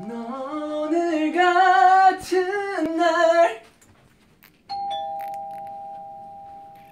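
A voice sings a short tune over a steady two-tone chime. About 4.7 seconds in, a hotel-room doorbell chime starts suddenly with the same two steady tones and slowly fades.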